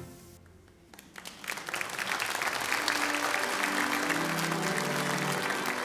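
The choir's music ends with its last chord dying away, then the congregation applauds, building up about a second in and staying strong, with a few held instrumental notes sounding under the clapping.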